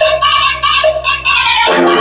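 Electronic song with a sung melody and steady bass, played from a phone over Bluetooth through a TPA3116D2 class-D amplifier board into a Sony oval coaxial car speaker and a small woofer. About two-thirds of the way through, the music moves to lower, fuller notes.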